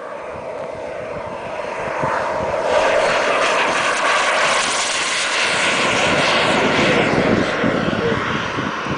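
Radio-controlled MiG-21 model jet's engine noise, a rushing roar that swells as it races down the runway on its takeoff roll. It is loudest as it passes and lifts off, then eases a little as it climbs away.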